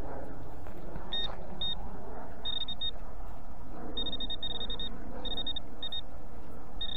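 Metal detector beeping in short, high-pitched bursts, starting about a second in, with a longer run of rapid beeps around four to five seconds in and again near the end. The beeps signal the small metal target that has just been dug up.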